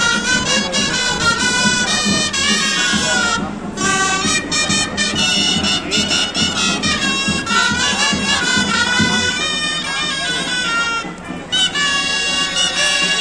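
Gralles, Catalan folk shawms, playing a loud, reedy street-parade tune, with two short breaks in the melody.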